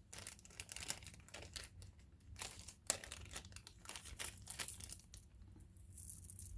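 Packaging crinkling as it is handled, a run of short crackles that dies down after about five seconds.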